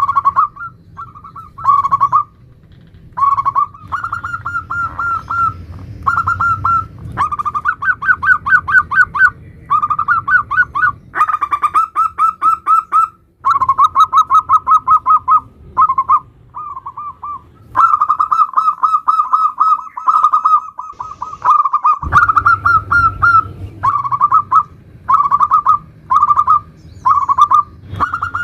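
Zebra dove (perkutut) song in the 'nutut' style: repeated phrases of quick, trilled cooing notes with short pauses between them.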